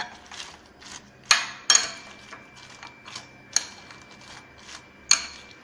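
Steel spoon clinking against a bowl while stirring and tossing noodles and French fries together: a handful of sharp, uneven clinks, with softer knocks and scraping between.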